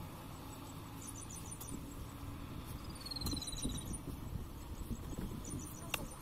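Small birds chirping in short quick runs three times, with one falling whistle, over a low steady rumble; a single sharp knock near the end.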